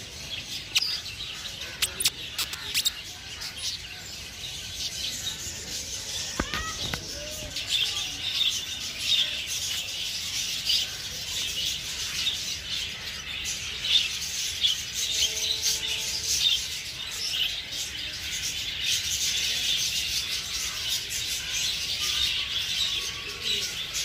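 A flock of budgerigars chattering, a dense, unbroken stream of short high chirps and twitters.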